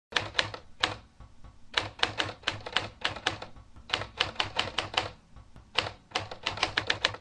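Typewriter typing sound effect: keys clacking in quick, uneven runs of strokes with short pauses between.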